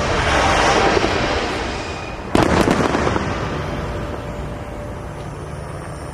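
A single sharp bang about two and a half seconds in, over a dense rumble of noise that slowly fades away.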